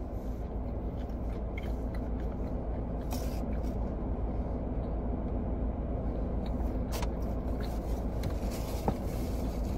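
Steady low rumble of a car's cabin with the car running, with a few faint short clicks through it, such as chewing or handling food.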